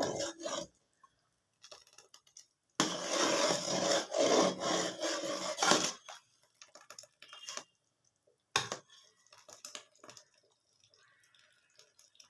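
A spoon stirring a pot of thick kadhi and scraping along the pan: a few seconds of steady rubbing starting about three seconds in, then scattered light clicks and one sharper knock.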